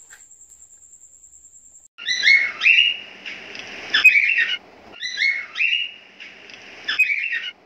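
Birdlike chirping sound effect with quick gliding high notes, played twice in nearly identical phrases a few seconds apart. Before it, a faint steady high-pitched tone stops about two seconds in.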